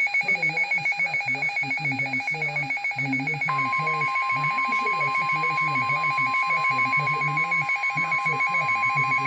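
Emergency Alert System attention signal: a rapidly pulsing, trilling pair of high and lower tones that rings like a telephone. About three and a half seconds in, a steady single-pitch alert tone joins it, the warning tone that comes before a weather warning message.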